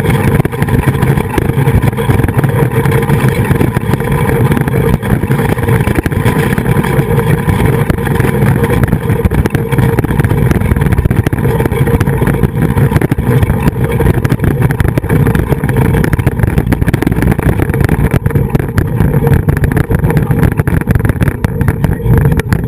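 Steady, loud rumble and rush of a flying fox zip-line ride: the trolley's pulleys rolling along the steel cable, with wind buffeting the trolley-mounted camera's microphone. The sound thins a little near the end as the trolley slows into the station.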